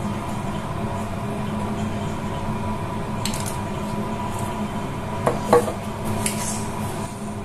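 A few clinks and knocks of kitchen utensils against dishes, the loudest a little past the middle with a short ring, over a steady low hum.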